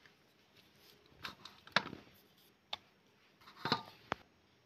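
A few light clicks and taps, about five in four seconds, from a plate and kitchen utensils being handled while rounds of mathri dough are laid out.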